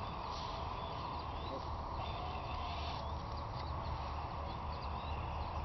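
Steady outdoor background noise with a low rumble, and scattered short high chirps over it.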